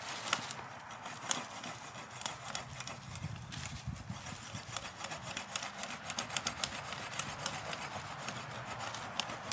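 Small saw edge of an Antarctica folding survival shovel sawing into wood: short scraping strokes, sparse at first and then a quick, steady run from about halfway through.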